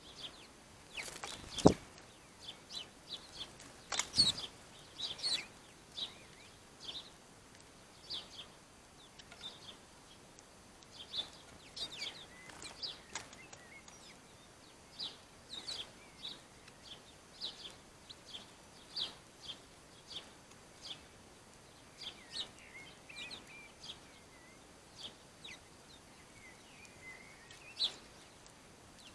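Wild birds chirping: short, high chirps repeated every second or so, with a few brief warbling phrases in the second half. Two louder, sharp sounds come about two and four seconds in.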